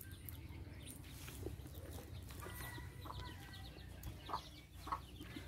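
Chickens clucking faintly, with the short high peeps of chicks scattered through.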